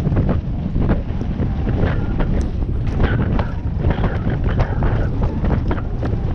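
Heavy wind buffeting on the microphone, an uneven low rumble, with frequent short knocks and rattles running through it.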